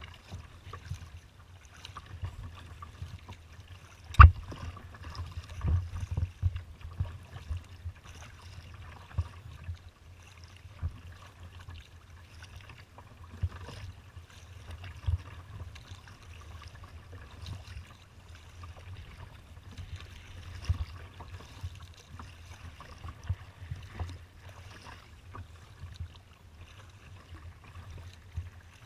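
Water sloshing and slapping against a kayak's hull as it moves through choppy open water, with irregular low thumps from the chop striking the boat. One sharp knock about four seconds in.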